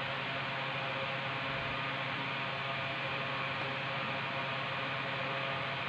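Steady hum with an even hiss behind it, unchanging, like a running fan or electrical hum in a small room.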